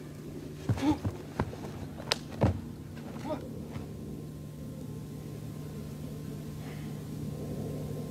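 A kung fu practitioner working through a bare-hand form: a few short shouts and sharp snaps of fast strikes in the first three seconds or so, then only a steady low hum.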